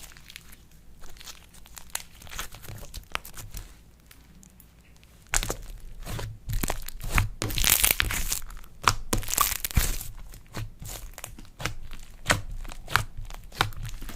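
Slime being worked, giving quick crackling clicks and pops. They get denser and louder about a third of the way in.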